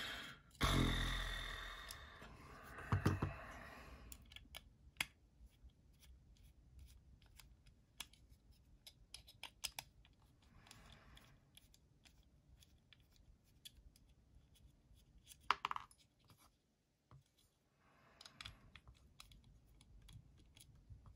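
Small metal clicks and taps of a folding knife's screws, pocket clip and driver being handled on a work surface, with a louder handling knock in the first few seconds and a sharp click that rings briefly about two-thirds of the way through.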